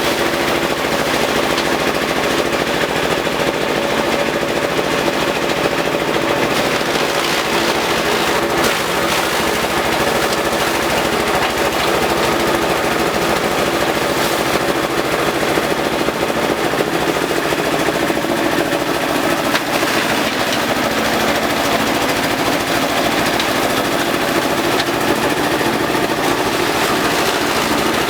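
Compost shredder running continuously while it shreds elephant grass: a loud, fast, even clatter over a steady machine drone.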